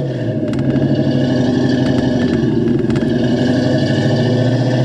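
A 1990 Ford Mustang LX's 5.0-litre V8 with Flowmaster mufflers running at a steady, even pitch while the car cruises along the road.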